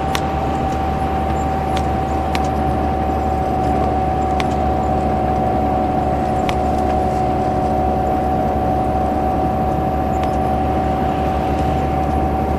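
Bus engine running steadily, a low drone with a steady high whine over it and a few sharp rattles.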